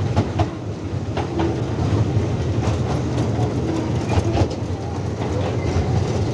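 Small museum ride train running on rails: a steady low rumble with irregular clicks and knocks from the wheels.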